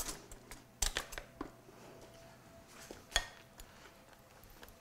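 A few separate clinks and knocks of kitchenware, the loudest about three seconds in: a stainless kettle being put back and a metal spoon knocking against a glass bowl of noodles.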